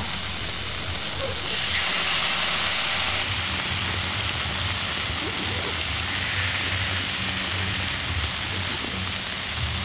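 Marinated pork sizzling and spitting on a hot steel griddle pan over a portable gas stove, a steady frying hiss. It grows louder for a second or two about a second and a half in, as another slice is laid on the pan.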